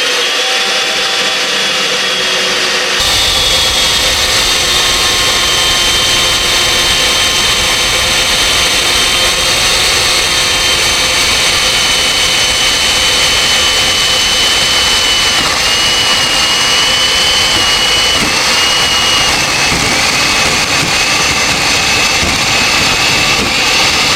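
Makita 7104L electric chain mortiser running and cutting a mortise in red oak: a loud, steady motor whine with chain noise. It gets louder and fuller about three seconds in, and the pitch wavers and dips slightly later on as it works under load.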